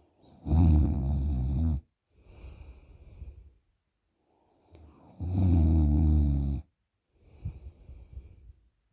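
A person snoring heavily in deep sleep after drinking alcohol: two loud, low, buzzing snores about five seconds apart, each followed by a softer, hissing breath out.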